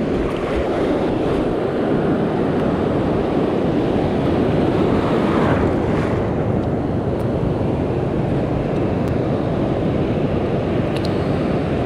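Ocean surf washing and rushing through shallow water, mixed with wind on the microphone; the wash swells about halfway through.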